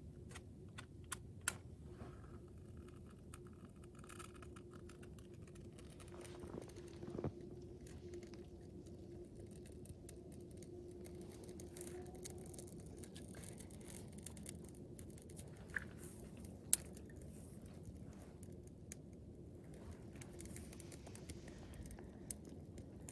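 Twig kindling burning in a small portable steel fire box: sparse crackles and pops over a low steady background, with the sharpest pop about three-quarters of the way through.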